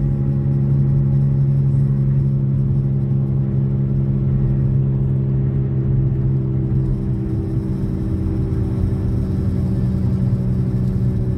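Car interior noise while cruising: a steady low engine and road rumble with an even-pitched hum.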